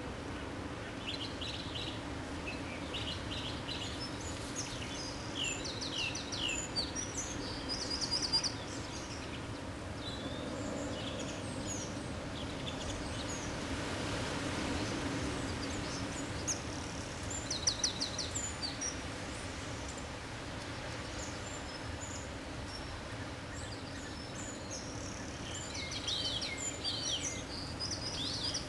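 Small songbirds chirping in scattered bursts of short, high, quickly repeated notes, over the steady hiss of falling rain.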